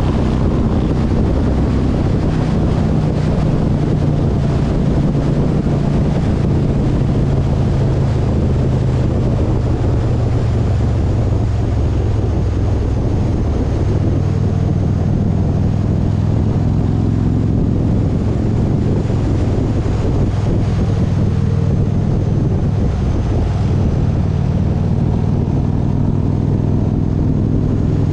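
Vehicle engine running steadily on the move, with road and wind noise; the engine note shifts up and down a few times.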